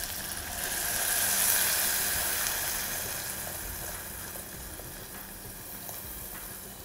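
Water poured into hot oil and bitter gourd slices in a soapstone pot, hissing and sizzling. The sizzle swells about a second in, then slowly dies down as the water cools the pan.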